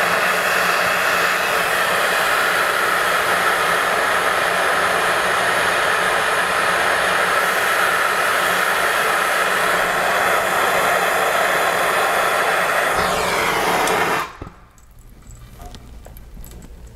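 Bernzomatic TS4000 trigger-start torch burning with a steady hiss while heating a copper pipe joint for soldering. The flame cuts off suddenly about 14 seconds in.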